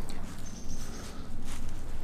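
Footsteps and rustling of someone walking on a woodland path, with a couple of light clicks, and one thin, high bird whistle about half a second in.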